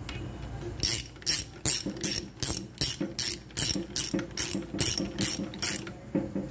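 Socket ratchet wrench clicking in quick, even back-swings, about three a second, starting about a second in, as a bolt on the oil strainer of a Suzuki K6A engine is tightened.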